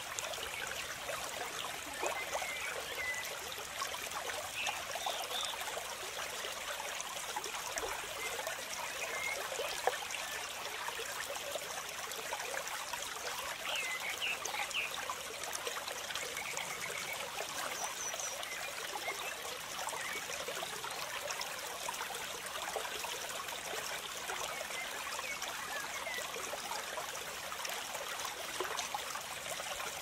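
Water of a small cascading stream rushing and splashing over rocks, a steady, even rush with little depth.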